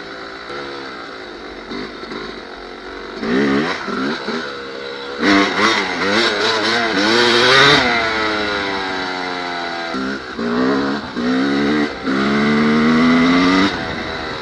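Yamaha dirt bike engine under way, revving up in several bursts of throttle and dropping in pitch each time the throttle is closed. The longest burst, about halfway through, climbs steadily in pitch before falling away.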